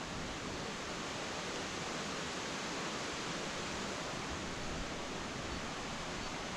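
Steady rush of a waterfall: an even, unbroken hiss of falling water with no distinct events.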